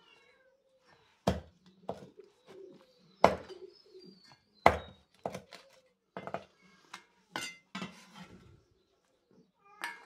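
Cleaver chopping grilled meat on a round wooden chopping block: sharp, irregular chops, about a dozen in all, with pauses between them.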